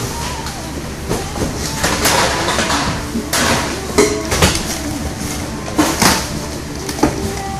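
Boxes of merchandise being unpacked by hand: cardboard and plastic wrap rustling and crinkling, with scattered clacks and knocks, over a steady low hum.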